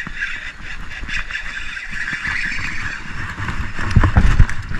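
Wind buffeting a camera microphone while a hooked fish is fought from a jon boat: a steady hiss with uneven low rumbling, which swells into a louder bout of thumping buffets about four seconds in.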